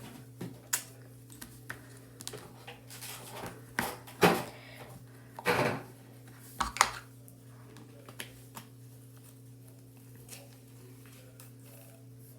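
Plastic slime containers and packaging being handled: scattered clicks, knocks and rustles, with two louder rustling bursts about four and five and a half seconds in. A faint steady low hum runs underneath.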